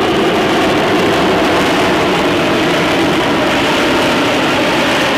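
F-35B Lightning II hovering in vertical-landing mode, its F135 jet engine and shaft-driven lift fan running at high power. The sound is a loud, steady jet noise with a deep rumble underneath, holding level throughout.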